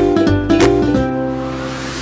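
Background music carried by a plucked ukulele-like string tune. In the second half the notes give way to a rising swish that leads into a cut.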